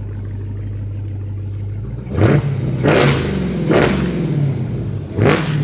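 Dodge Charger SRT Hellcat's supercharged 6.2-litre HEMI V8 idling, then revved in four sharp blips, the pitch rising and falling with each.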